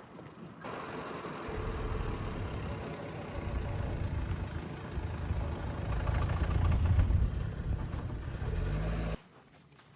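Motor vehicle engine running with a low rumble that grows louder over several seconds, then cuts off abruptly near the end.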